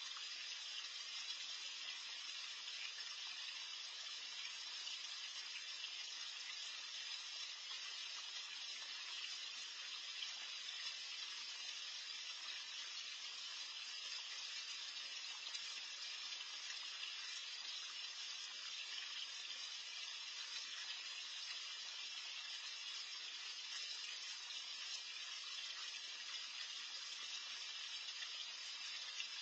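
Steady hiss of water churning in a small garden pond, even and unbroken, with no separate splashes.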